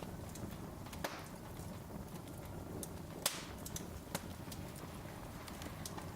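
Wood fire crackling: scattered sharp pops and snaps over a steady low hiss of burning logs, with the loudest pop about three seconds in.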